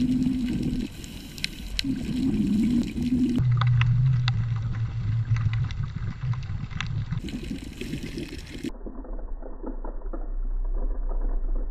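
Underwater scuba breathing heard through a GoPro's waterproof housing: the regulator's exhaled bubbles gurgle in surges that come and go, with scattered sharp clicks. The tone changes abruptly a few times.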